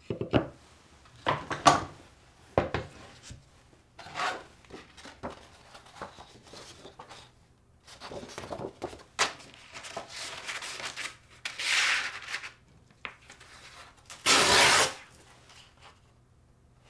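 Sheets of sandpaper, one of them 240-grit, handled, flexed and slid over a wooden jig and bench: a string of short rustles and scrapes, with the longest and loudest rub about fourteen seconds in.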